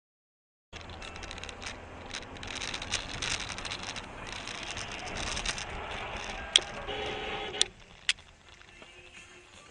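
Road and engine noise inside a moving car, picked up by a dashcam microphone, with three sharp knocks in the second half, the first the loudest. The noise drops away suddenly just after the second knock.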